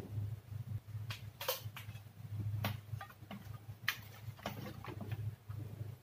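Handling noise of a CRT television's circuit board being turned over and worked on a wooden bench: a run of sharp clicks and knocks over a steady low hum.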